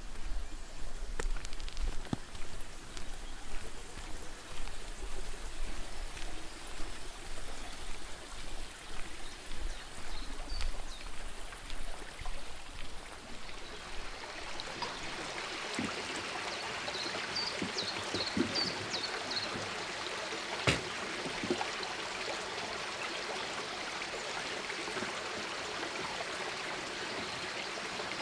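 Running water of a small stream, a steady rush that becomes even and continuous about halfway through after an uneven, gusty first half. A few short, high bird chirps come just past the middle.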